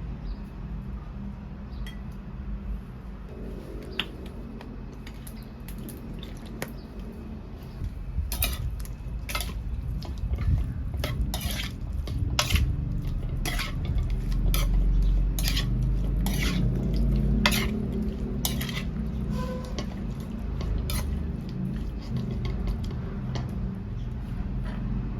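Metal utensil clinking against a bowl as food is stirred and tossed, a run of sharp clicks about one or two a second through the middle stretch, over a low rumble.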